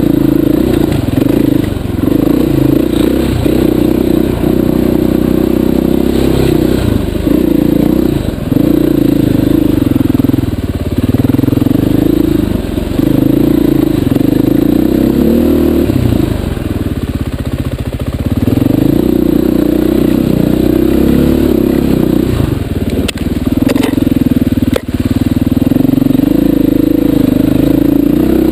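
Dirt bike engine close to the microphone, its revs rising and falling with the throttle, easing off briefly about two-thirds of the way through. A few sharp knocks come near the end.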